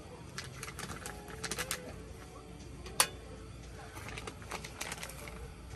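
Scattered clicks and taps of utensils against a cooking pan, with a quick cluster about one and a half seconds in and one sharp knock about three seconds in, over a low steady hum.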